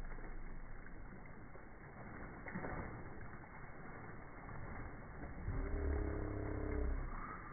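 Steady outdoor rush, then about five seconds in a motor engine's hum comes up and grows louder as it draws near.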